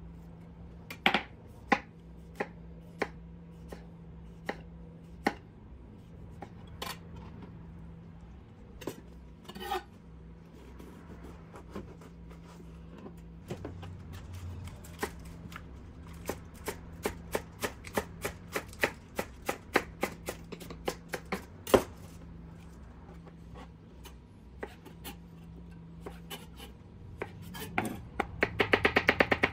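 A kitchen knife chopping vegetables on a cutting board. There are scattered single cuts at first, then a steady run of strokes about three a second, and the strokes come faster near the end.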